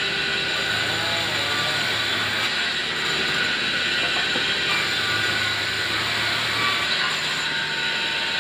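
Vertical band sawmill running and cutting lengthwise through a log: a steady whine and rushing noise from the blade in the wood, over a low motor hum.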